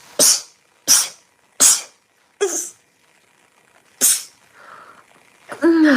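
A woman sneezing five times in quick succession, the first three about two-thirds of a second apart and the last two more spaced out, followed near the end by a short voiced sound falling in pitch.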